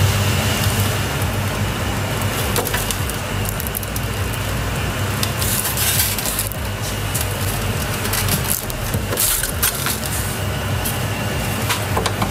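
Plastic housing of an electric storage water heater creaking, scraping and cracking as it is worked loose by hand, with scattered sharp clicks over a steady low hum.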